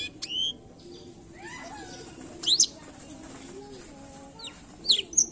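Blackthroat (black-throated canary) singing short, sharp, high whistled notes and quick sweeping notes in separate phrases, with a quickening run of notes near the end.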